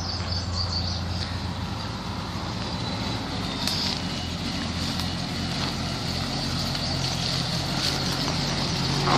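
1986 Jeep Grand Wagoneer's AMC 360 V8 with a two-barrel carburettor, running steadily as the wagon drives slowly up a dirt track, getting gradually louder as it approaches.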